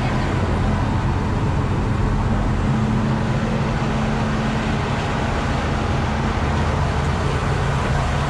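Bizon Rekord combine harvester's diesel engine running steadily.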